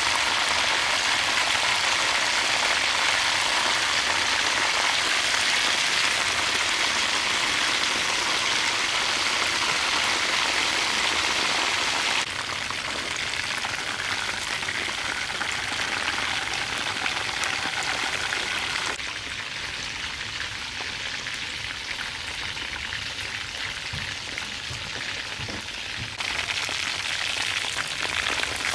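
Food frying in a pan: a steady sizzling hiss. It drops in level suddenly twice and comes back up near the end.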